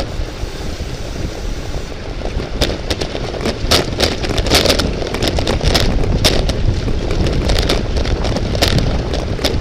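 Wind buffeting a microphone at speed. From about two and a half seconds in, irregular sharp clicks and rattles come through it.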